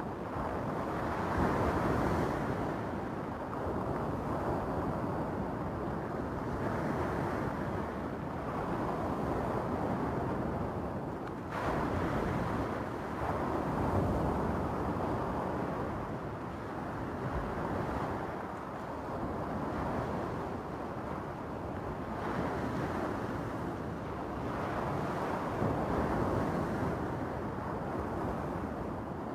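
Small waves breaking and washing up over a stony beach, the surf swelling and easing every few seconds.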